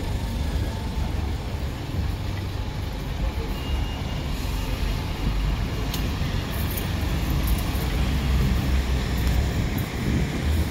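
City street traffic: cars and buses running past with a steady low rumble, and a sharp click about six seconds in.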